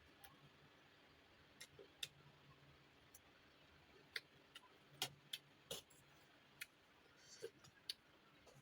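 Eating sounds close to the microphone: irregular soft clicks and smacks of chewing and mouth noises, about a dozen spread unevenly over a faint background.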